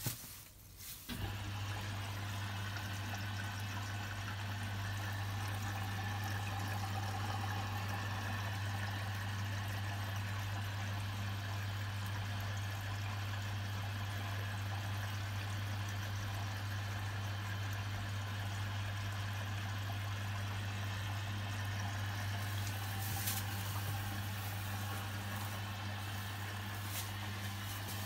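Washing machine starting a program: a click, then about a second in a steady low hum sets in with water rushing in as the drum fills.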